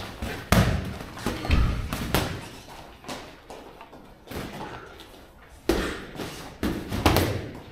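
Boxing gloves landing punches in sparring: sharp thuds and slaps in irregular clusters, the loudest about half a second in and near the end.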